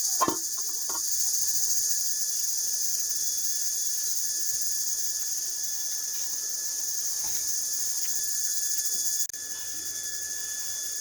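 Steady high-pitched chirring of insects, with a few faint knocks in the first second; the chirring drops in level about nine seconds in.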